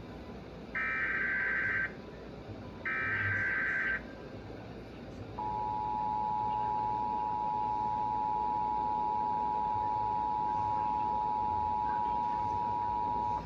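Emergency Alert System SAME header: two digital data bursts, each about a second long, a harsh warbling buzz. After a short pause comes the EAS two-tone attention signal, 853 and 960 Hz sounded together, held steady for about eight seconds. It introduces a severe thunderstorm warning.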